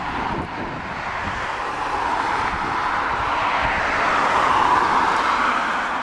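Twin jet engines of a Boeing 767-300ER airliner running as it rolls along the runway. A steady rushing jet noise grows louder, peaks about three-quarters of the way through, then eases slightly.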